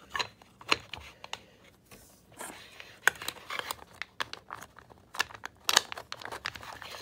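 A clear plastic ball holder being handled, its halves clicking and scraping together as a baseball is fitted inside. The sound is a run of sharp, irregular clicks and short rubs, loudest about three seconds in and again just before six seconds.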